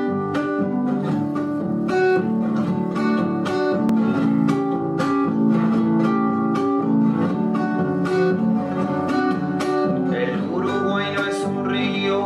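Acoustic guitar played with plucked notes and strums, an instrumental introduction to a folk song. A voice joins in singing near the end.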